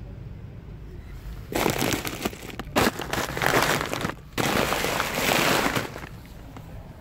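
A hand squeezing and rubbing a clear polyethylene bag of marble chippings, the plastic crinkling loudly. It comes in two long stretches with a short break between them and a sharp crackle near the middle of the first.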